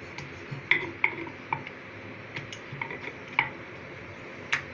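Irregular light clicks and knocks as maida dough is rolled and pressed out on a chapati board, with one sharper click near the end.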